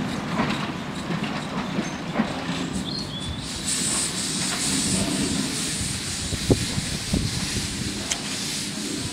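Small narrow-gauge steam locomotive drawing a single coach slowly along the track: a steady rumble of the running wheels with a few sharp clicks over rail joints. A hiss of escaping steam comes in about three and a half seconds in.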